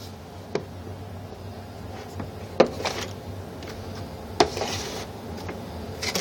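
Handling noise: a few light clicks and knocks, about two seconds apart, as clear plastic airbrush cases are moved about, over a steady low hum.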